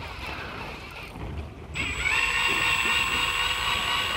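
A small electric motor, typical of an electric fishing reel winding in line from deep water, starts up less than two seconds in with a sudden steady high whine that holds, its pitch stepping up slightly soon after it starts. Underneath is a low rumble and wind noise on the microphone.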